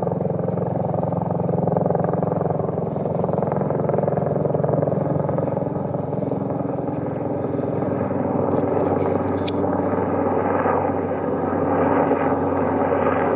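Marine One, the presidential helicopter, flying past, its rotor beating steadily over the engine sound and growing a little louder near the end.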